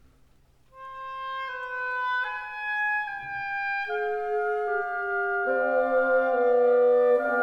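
Instrumental background music: after a near-silent second, a slow melody of held notes begins, and lower notes join partway through to form sustained chords, growing louder.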